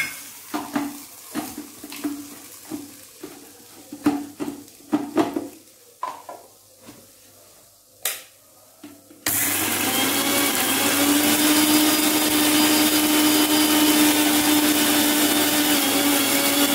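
Knocks and clatter of a small steel mixer-grinder jar being handled and fitted onto its base. About nine seconds in, the electric mixer grinder starts suddenly and runs loud and steady with a pitched motor hum, grinding fried curry leaves, lentils and green chillies into a paste.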